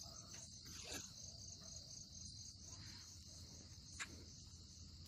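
Crickets chirping faintly in a steady, rapid, even trill, with one short click about four seconds in.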